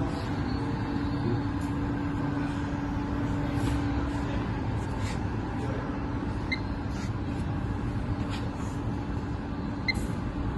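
Industrial machinery running steadily, a low rumble with a steady hum, with a few faint light clicks.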